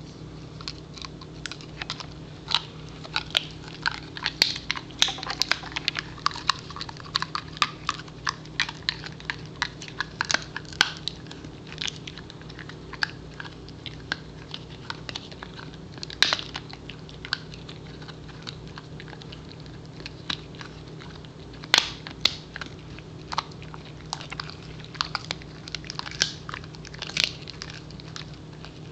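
Pembroke Welsh Corgi chewing and biting a beef pizzle (bully) stick: irregular crunching bites and gnawing clicks, with a short lull a little past halfway.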